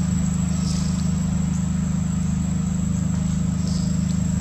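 Steady low mechanical hum of an idling engine, running unchanged. Two faint short high chirps come through it, about a second in and near the end.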